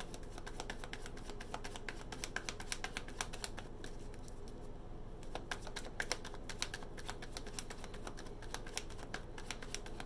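A deck of tarot cards being shuffled by hand, overhand, making a steady run of quick, light clicks and taps as the cards slap against each other.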